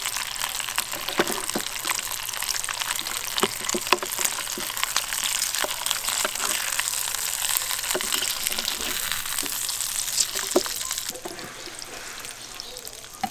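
Strips of kimbap ham sizzling in oil in a small rectangular pan, a dense crackling with a few light clicks. The sizzle drops noticeably about eleven seconds in.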